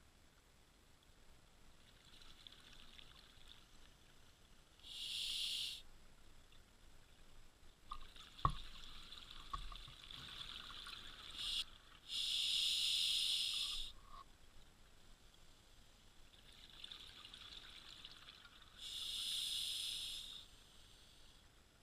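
Scuba diver breathing through a regulator underwater: three breaths about seven seconds apart, each a quieter hiss followed by a louder rush. There is a single sharp knock about eight seconds in.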